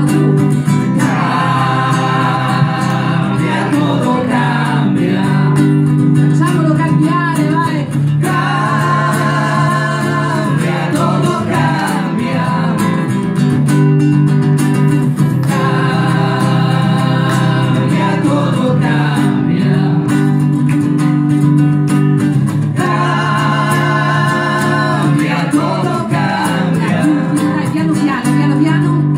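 Acoustic guitar played live, with a woman singing over it in four long phrases. The phrases begin about a second, eight, fifteen and twenty-three seconds in, and the guitar carries on alone between them.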